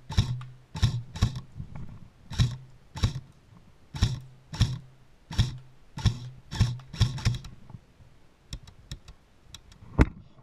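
Airsoft AK rifle firing single shots in quick succession, about two a second, each a sharp crack with a brief low whir. The shots stop about eight seconds in, followed by a few lighter clicks and one sharp click near the end.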